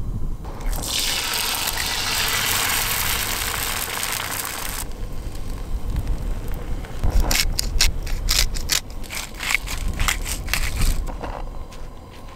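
Egg frying in a hot cast iron skillet: a loud, steady sizzle that cuts off abruptly about five seconds in, then a run of sharp crackling pops from the hot fat.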